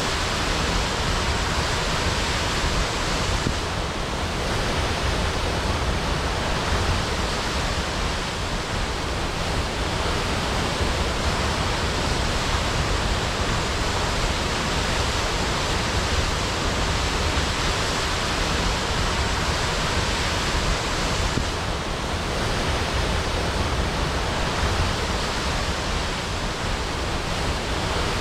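Waterfall crashing: a steady, unbroken rush of falling water.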